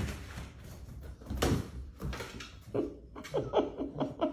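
Bulldog puppy scampering on a hard floor: a run of irregular thumps and scuffles, the loudest about a second and a half in. Near the end a person starts to laugh in short bursts.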